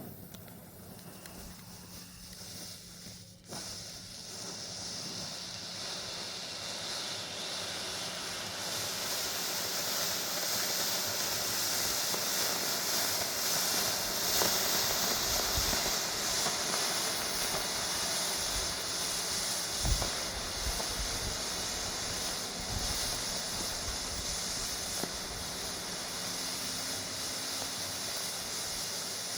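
Consumer smoke bomb fired electrically, hissing steadily as it burns. The hiss starts about three and a half seconds in and grows louder over the next several seconds.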